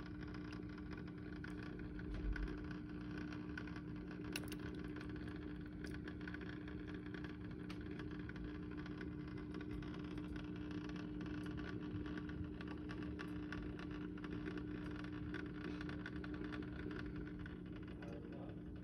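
Steady hum of a small electric motor with two held tones, one low and one a little higher, running without change, with faint scattered ticks and a soft low bump about two seconds in.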